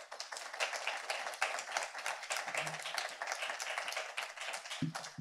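Audience applauding, starting suddenly and dying away near the end, with a low thump just before it stops.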